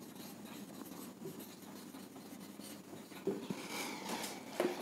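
Marker pen writing on a whiteboard: faint scratchy strokes, a little louder and squeakier near the end.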